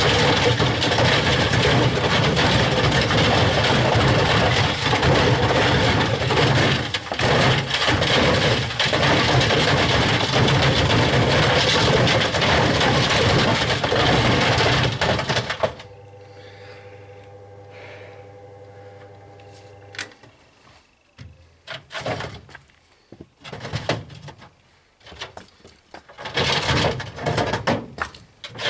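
White Knight tumble dryer running with bricks and hammers tumbling in its drum: a loud, continuous clattering and banging. A little over halfway through it cuts off suddenly, leaving a steady hum for a few seconds, then scattered separate knocks and clunks.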